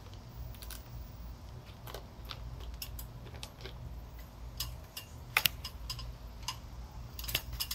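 Irregular sharp clicks and knocks from hands working a toddy collecting pot and the cut flower stalk of a queen palm, the loudest about five seconds in and a quick cluster near the end, over a low steady rumble.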